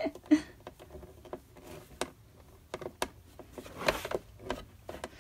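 Scattered light clicks and taps from a screwdriver and hands working small screws into the metal blade rail of a plastic paper trimmer, where a screw is cross-threading. About four seconds in there is a louder rustle as the trimmer is shifted on its towel.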